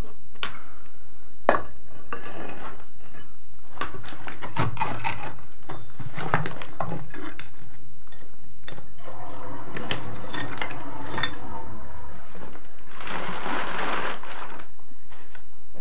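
Thin metal rod being poked and scraped among broken concrete slabs and sand, with irregular metallic clinks, knocks and scrapes. A short rustling hiss near the end.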